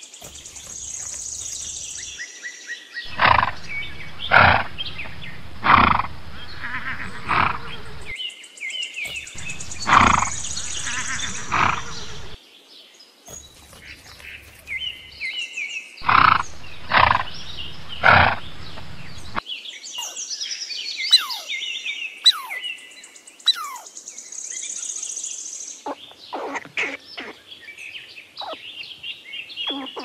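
Plains zebras barking: three bouts of loud, repeated barks, each a run of calls about one and a half a second apart, with high bird chirping between the bouts. A run of short high chirps and clicks fills the last third.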